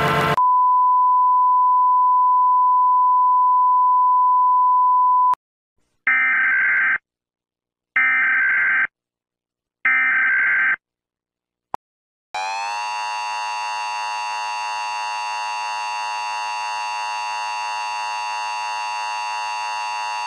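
Emergency Alert System tones: a steady single beep-tone for about five seconds, then three short buzzy data bursts about two seconds apart (the EAS digital header), then the harsh two-tone EAS attention signal held for about eight seconds, announcing an Emergency Action Notification.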